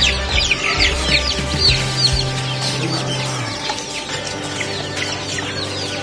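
A crowd of caged young chicks peeping non-stop, a dense overlapping stream of short, high, falling peeps.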